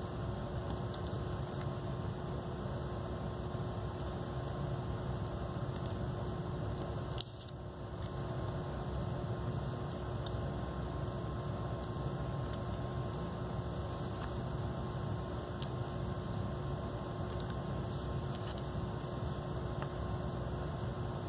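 Steady room hum and hiss with two faint steady tones, broken by scattered soft clicks and rustles of paper and tape being handled; the background drops out briefly about seven seconds in.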